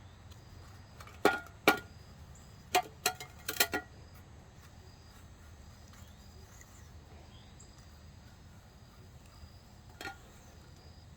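A run of sharp clicks and knocks, about six in the first four seconds and one more near the end, from handling the tool while taping its handle. Behind them are a low steady hum and faint insect chirping.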